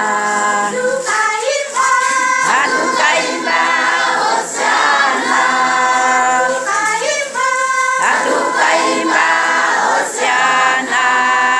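Church choir singing a hymn in harmony, holding long chords that shift every second or two.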